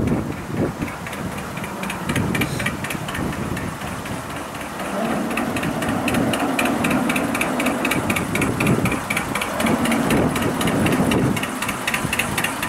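Bolinder-Munktell BM 1052 boat engine running with a steady, even firing beat.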